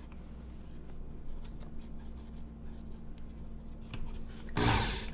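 Light scraping and rubbing while a new belt is fitted onto a Work Sharp Ken Onion electric knife sharpener. Near the end the sharpener is switched on and its belt runs briefly with a loud whirring hiss.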